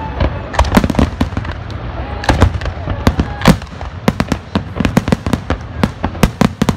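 Fireworks display: aerial shells bursting in a rapid, irregular barrage of bangs and crackles, with the loudest bang about three and a half seconds in.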